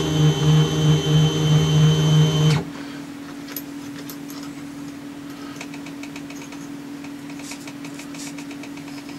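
Small workshop machine tool's electric motor running with a pulsing hum, switched off about two and a half seconds in. A fainter steady hum and a few light clicks remain.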